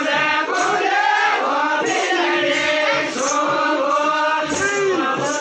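A group of voices singing a folk dance song together, with a faint high tick about twice a second.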